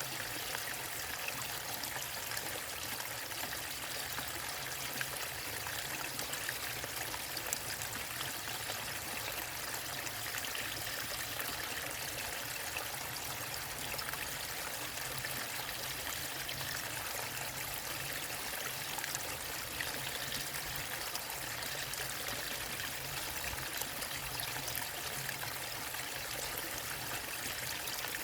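Waterfall running into a stream: a steady, unbroken rush of falling water with fine splashing throughout.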